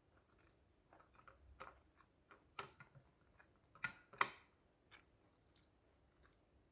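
Close-up eating sounds: chewing with a scatter of short crisp clicks and crunches, the loudest two close together about four seconds in.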